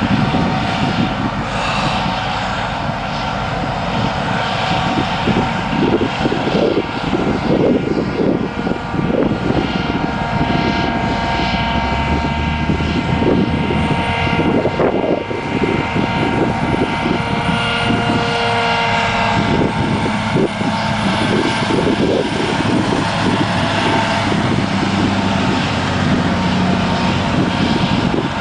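John Deere 7850 self-propelled forage harvester with a Kemper header chopping downed sorghum: a steady engine and machinery drone with several high whining tones held level, over an irregular low rumble.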